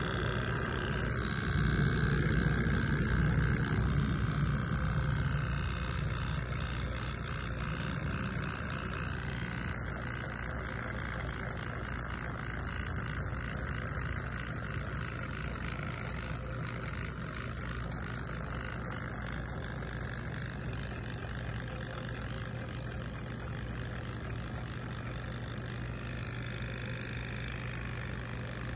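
Handheld electric hair trimmer running with a steady buzz as it cuts beard hair, louder for a few seconds near the start.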